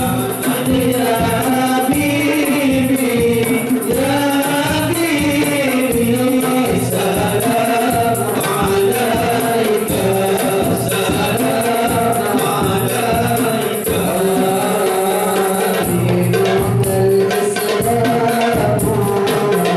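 Male group singing an Islamic devotional qasidah in unison, accompanied by a steady rhythm on hand-held frame drums and a large bass drum. The drumming comes more to the fore in the last few seconds.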